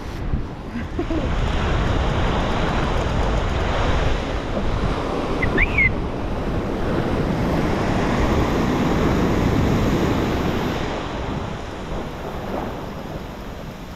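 Surf breaking and washing up the beach in a broad steady rush, with wind buffeting the microphone. The wash swells louder over the first couple of seconds and eases off near the end, with a brief high squeak about halfway.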